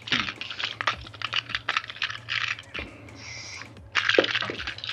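A clear plastic bag of small pin badges being handled: crinkling plastic with many quick, light clicks and rattles.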